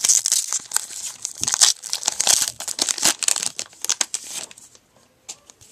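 Wrapper of a Topps Heritage baseball card pack being torn open and crinkled by hand: a dense run of crackling that dies away about four and a half seconds in, leaving a few faint clicks.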